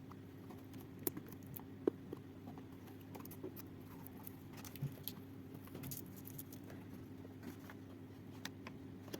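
Faint handling noises of an unboxing: scattered small clicks and taps, the sharpest about one and two seconds in, over a low steady hum.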